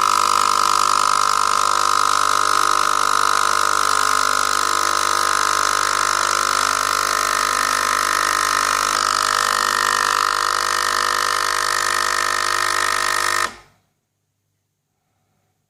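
Nespresso Inissia coffee machine's pump running as it pushes water through a capsule: a loud, steady hum with a strong high tone that cuts off suddenly near the end.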